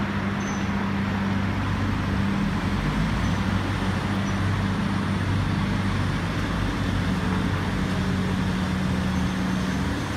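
A steady low engine hum with street traffic noise.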